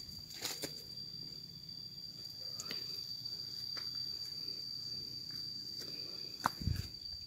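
Footsteps and scattered rustles of someone walking a dirt footpath through grass and brush, with a few heavier thumps a little before the end. Under them runs a steady high-pitched insect drone.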